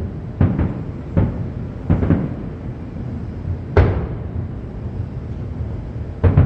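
Aerial fireworks bursting: a string of sharp booms at irregular intervals, the loudest a little under four seconds in, over a low rumbling background.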